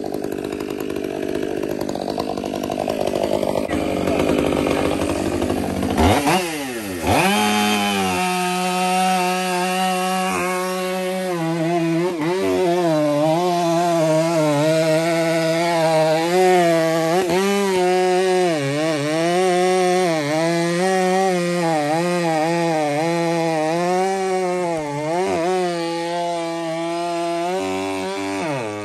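Stihl MS500i fuel-injected chainsaw with a 32-inch bar and full-house chain, run at high revs cutting rounds off a big fir log. About six seconds in the revs drop sharply and climb back. After that it runs at a high, wavering pitch under load, dipping once more just before the end.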